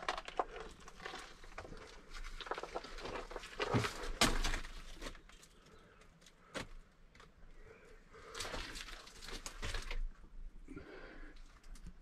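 Footsteps crunching and scraping over loose stones, with sharp clicks, in two main stretches.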